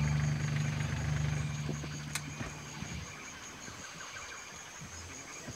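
A boat's outboard motor runs low and steady, then cuts off about three seconds in, leaving a steady high buzz of insects. A single sharp tick sounds about two seconds in.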